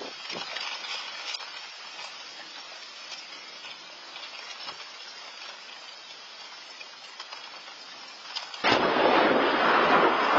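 Hail and rain pelting down, picked up by a Nest outdoor security camera's microphone: a steady hiss with many small clicks of hailstones striking. About three-quarters of the way through it abruptly becomes much louder and denser.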